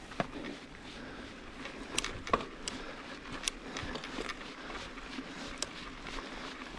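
Mountain bike rolling over rough ground: steady tyre and ride noise with irregular clicks and rattles from the bike.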